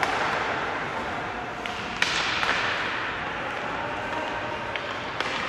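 Ice hockey play on the rink: a sharp clack of stick on puck about two seconds in, followed by a hissing scrape of skates on the ice, with lighter knocks before and after over a steady arena background.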